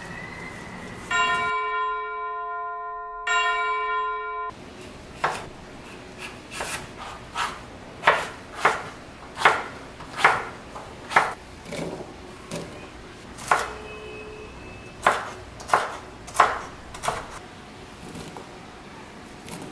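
Two bright bell-like chime dings, a title sound effect. Then a chef's knife chops a cucumber on a wooden cutting board, with steady cuts about every two-thirds of a second.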